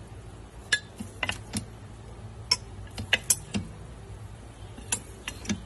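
Wooden spatulas tossing and stirring cooked rice in a pot, with irregular light clicks and knocks as they strike the pot.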